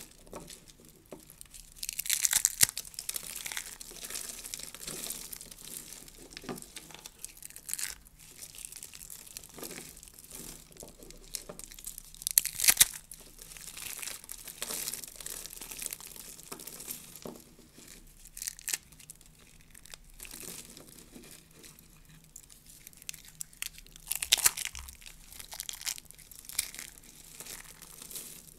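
Dry soap curls and flakes crushed and crumbled between the fingers: crisp crunching and crackling in irregular flurries, loudest about two seconds in, near the middle, and again toward the end.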